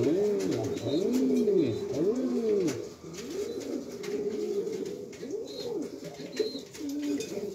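Argovien white-tailed pigeon cooing in a small wooden loft box: a run of rising-and-falling coos, about one a second, stronger over the first three seconds and softer after.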